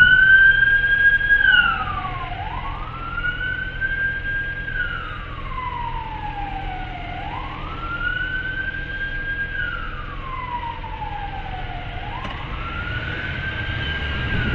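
Emergency-vehicle siren on a slow wail: its pitch climbs, holds briefly at the top and slides back down, about every five seconds, rising three times. A low rumble runs underneath.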